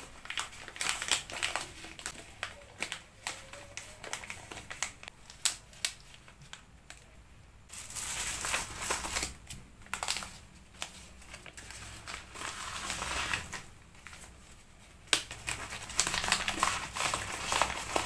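Plastic packaging crinkling and rustling as a lip tint is worked into a plastic pouch and the pouch is pushed into a plastic bubble mailer. Short crackles and taps come first, then longer stretches of rustling in the second half.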